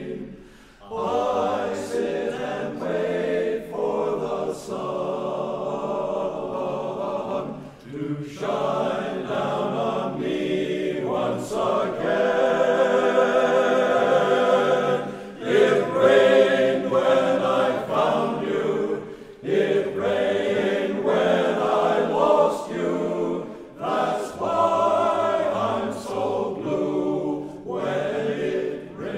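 All-male a cappella choir singing in close harmony, in long held phrases with short breaks between them.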